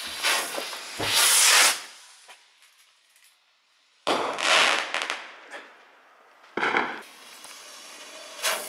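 A large firework rocket launching with a loud hiss that lasts a second or two. About four seconds in it bursts with a sudden bang followed by a few smaller pops. Another short burst comes near seven seconds, and a new hiss starts near the end.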